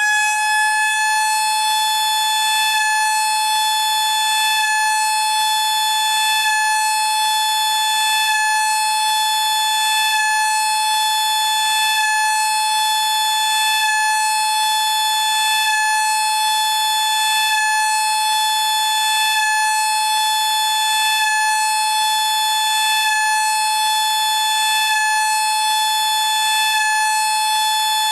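LK JDW105 air raid siren running at full speed: one steady, unwavering high wail that neither rises nor falls.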